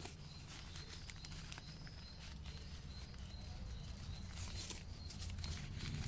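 Brown kraft-paper bulb packets rustling and crinkling as they are handled and one is pulled out and opened: short scattered crackles, busiest about five seconds in, over a faint steady low hum.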